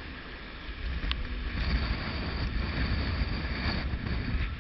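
Wind buffeting the microphone over the rush of breaking waves and water streaming past the hull of a wooden sailing yacht in rough seas. A single sharp click about a second in.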